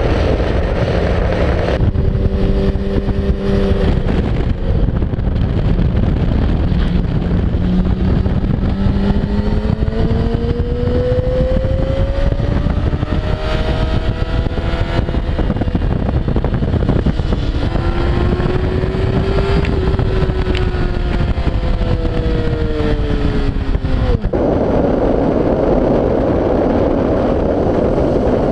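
2008 Yamaha R6's 600 cc inline-four engine heard through an onboard camera at speed on track, its pitch climbing and falling several times as the rider accelerates and backs off. Heavy wind noise on the microphone at the start and again near the end.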